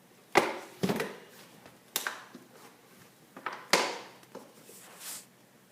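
Hands prying and tearing at a cardboard toy box to open it, with about six sharp rips and cracks spaced unevenly over several seconds.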